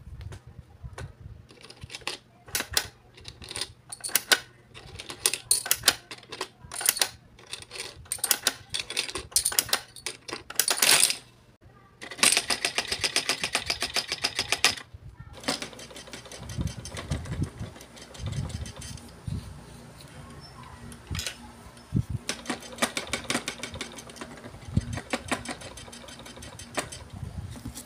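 Plastic Greedy Granny toy being handled: many sharp plastic clicks and clatters as biscuit pieces are taken from her tray and her arms are worked. Fast, even mechanical ticking runs for a few seconds midway, followed by scattered softer knocks and low thuds.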